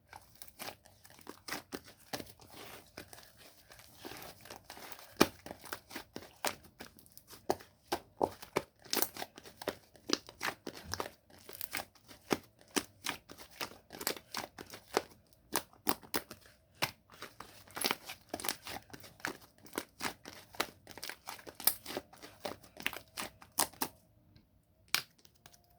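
Foamy slime being squished and pressed by hand, with quick, irregular pops and crackles of trapped air bubbles, several a second. It stops a couple of seconds before the end.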